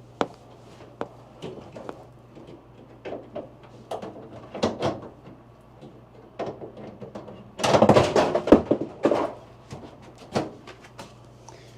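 Irregular knocks, clunks and rattles of hands working metal and plastic parts of an RV washer-dryer unit, with a longer, louder burst of clatter about eight seconds in, over a low steady hum.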